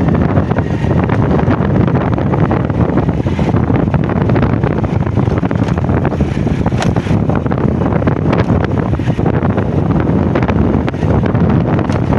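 Wind buffeting the microphone of a moving vehicle: a loud, steady, fluttering low rumble.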